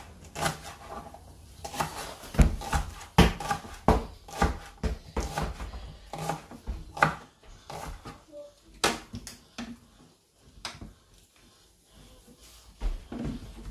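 Kitchen knife chopping spring onions on a plastic cutting board: a run of sharp, irregular taps that thins out and nearly stops about ten seconds in, then picks up briefly near the end.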